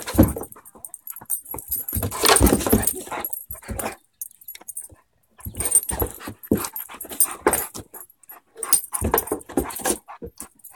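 A Great Dane and a whippet play-fighting, making dog noises in irregular bursts with a lull of about a second and a half some four seconds in.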